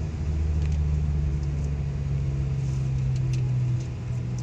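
Car engine and road noise heard from inside the cabin while driving: a steady low hum that eases a little near the end.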